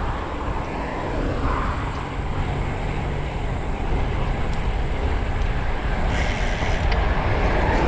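Wind buffeting the microphone of a bike-mounted camera during a hard bicycle ride, a steady rumbling noise with tyre and road noise underneath. A brief hiss comes in about six seconds in.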